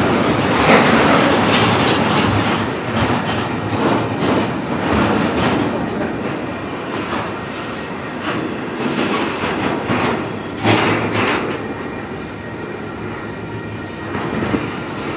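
Union Pacific double-stack container train's loaded well cars rolling past close by: a steady loud rumble of steel wheels on rail with clickety-clack over the joints, a sharper clank about two-thirds of the way through and a few more near the end.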